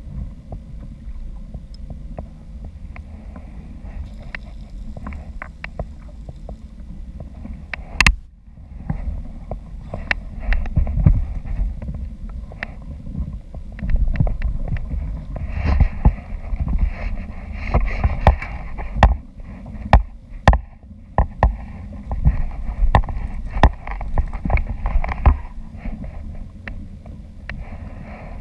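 Steady low rumble of water and wind around a kayak, with many scattered knocks and clicks, one sharp click about eight seconds in.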